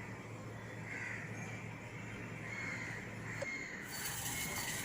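Crows cawing faintly in the background, several separate calls a second or so apart, over a low steady hum that stops with a small click partway through.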